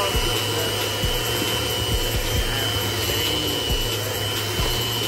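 Electric hand mixer running steadily, its twin beaters whisking blue food colouring into creamed cookie dough.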